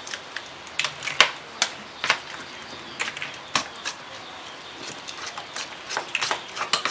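A metal spoon mixing wet minced meat, glass noodles and raw duck eggs in a stainless steel bowl, clicking and scraping against the bowl at irregular moments.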